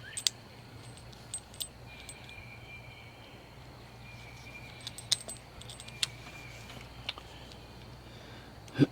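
Light metallic clicks and ticks of a flat-blade screwdriver working a hose clamp tight around a garden hose repair fitting, a few scattered taps at a time. Under them is a faint steady low hum.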